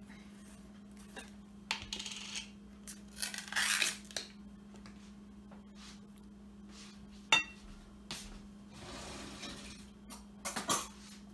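Utensils scraping and clinking against a glass mixing bowl as Miracle Whip is scooped in with a silicone spatula, in scattered short scrapes and knocks. One sharp clink, about seven seconds in, rings briefly. A steady low hum sits underneath.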